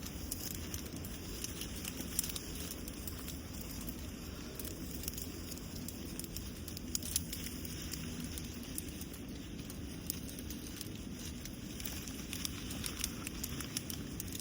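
Wind rumbling on the microphone over a constant, irregular crackling and rustling of leaves and bushes.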